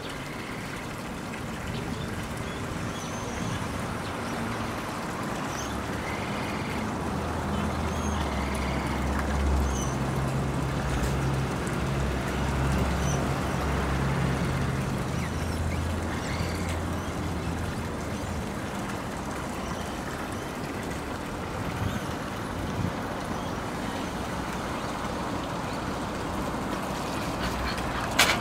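Steady outdoor background noise with a low, even hum through the middle stretch, a few faint short high chirps, and one sharp knock near the end.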